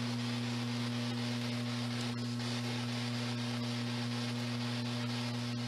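Steady low electrical mains hum with a constant hiss of static underneath.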